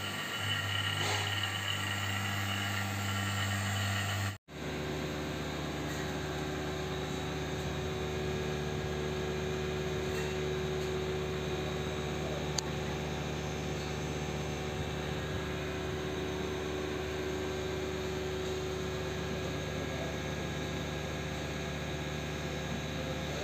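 Panasonic inverter split AC outdoor unit running: a steady hum from the compressor and fan with a rush of air, broken by a brief gap about four seconds in.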